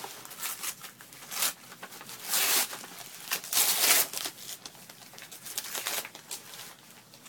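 Gift wrapping paper being torn and crumpled as a present is unwrapped by hand. There is a run of short rips and crinkles, with two longer, louder tears around the middle.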